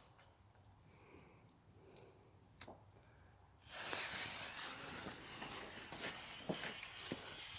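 A lit firework starts just past the middle with a sudden, steady, loud hiss, with scattered crackles and pops. Before that there are only a few faint clicks.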